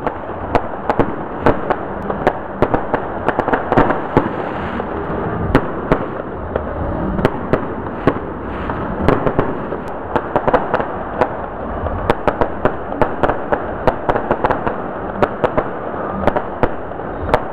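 Aerial fireworks going off in quick succession: many sharp bangs and pops, several a second, over a continuous dense crackle.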